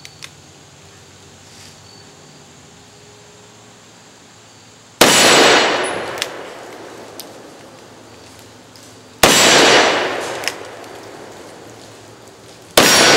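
Three shots from a Magnum Research BFR revolver in .500 Linebaugh, firing heavy 435-grain hard-cast Buffalo Bore loads, about four seconds apart. Each is a sharp blast with a long echoing tail. A couple of faint clicks come just at the start.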